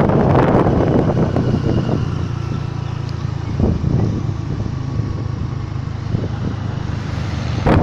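Wind buffeting the microphone on a moving Honda scooter for about two seconds, then it drops away, leaving the scooter's steady engine hum and road noise; loud wind noise returns suddenly at the very end.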